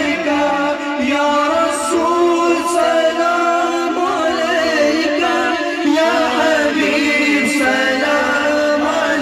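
A group of men singing a naat together into microphones, unaccompanied, in long wavering held notes.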